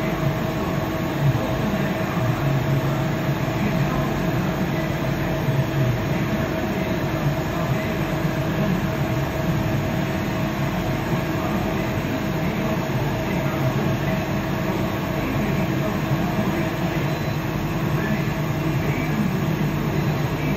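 Okuma Multus mill-turn machine milling the helical flights of a screw with an end mill while the part turns on the C axis, under flood coolant. The cut, spindle and coolant spray make a steady, unbroken machining noise with a constant tone running through it.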